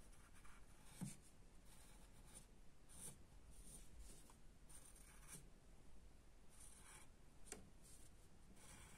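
Faint scratching of a pencil on paper: a handful of separate short strokes as a line is drawn.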